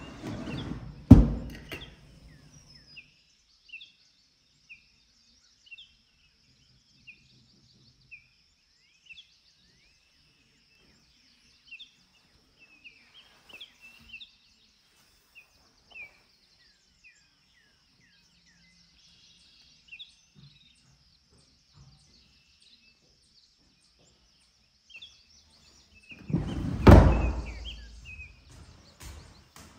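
Wooden drawer of a chest of drawers being handled: a sharp knock about a second in and a longer sliding thud near the end. Small birds chirp faintly throughout.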